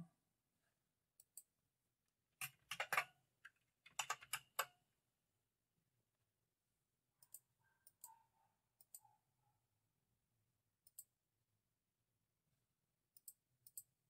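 Computer keyboard keystrokes clicking, with the buckle program playing imitation IBM buckling-spring key clicks. A quick run of clicks comes about 2.5 s in and another about 4 s in, then single clicks spread further apart.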